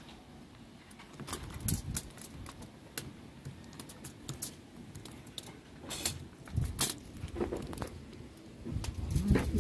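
Irregular clicking and crinkling of aluminium foil and a spoon as a chopped onion-and-pepper sauce is spooned onto roast lobster halves lying on the foil, with a few soft low thumps of handling.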